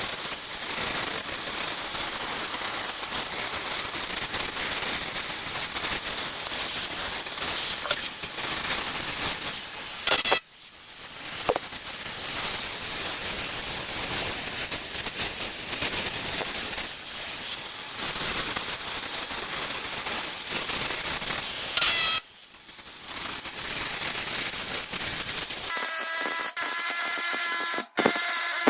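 Cutting torch hissing steadily as it cuts through the truck's steel, cutting off briefly twice.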